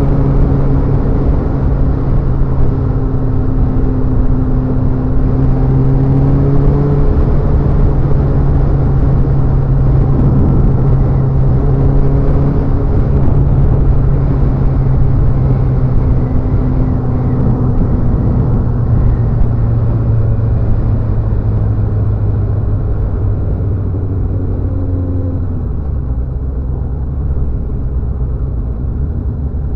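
Motorcycle engine running at steady cruising revs, with a constant low rumble of wind and road noise. The note dips slightly a few times and eases off a little in the last few seconds.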